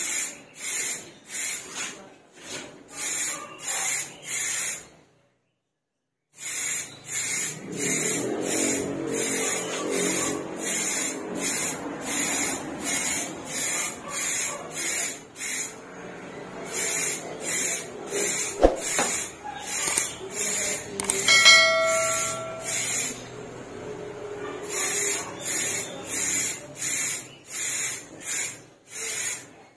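Samurai white aerosol spray paint fired from the can through a trigger spray grip in short, rapid hisses, nearly two a second with brief pauses, laying down the first coat. A short ringing tone sounds about two-thirds of the way through.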